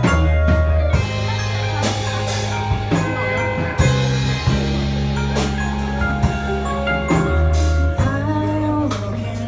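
Live band playing: a bass line in long held notes with drums and cymbal hits over it.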